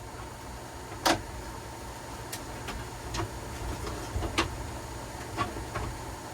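Scattered sharp clicks and knocks, about seven, the loudest about a second in, over a steady low hum: tools and parts being handled while stripping out a fire-damaged truck interior.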